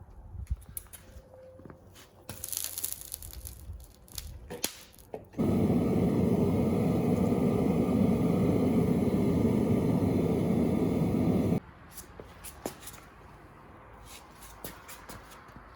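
Scraping and handling clicks, then a loud steady rushing noise that starts abruptly about five seconds in and cuts off suddenly about six seconds later, followed by a few faint clicks.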